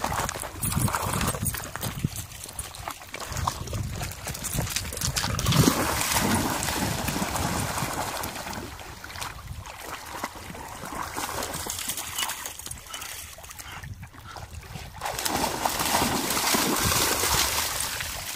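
Dogs wading and swimming in shallow lake water, the water splashing and sloshing around their legs, in uneven spells that swell about a third of the way in and again near the end.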